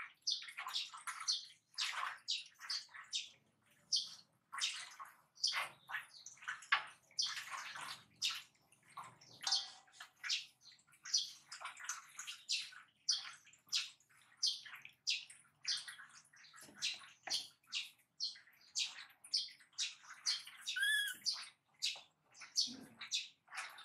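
Water splashing and sloshing in metal basins in short, irregular bursts, about two or three a second. One short, high chirp comes near the end.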